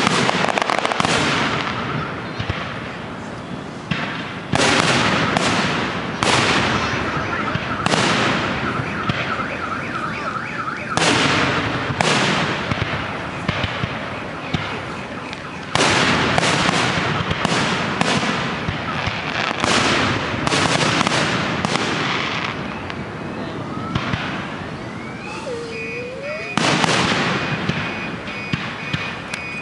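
Aerial fireworks bursting: loud booms every one to four seconds, each trailing off in crackle, with a rising whistle a few seconds before the last big burst. A high pulsing tone sounds under the bangs around the middle, and steady high tones hold near the end.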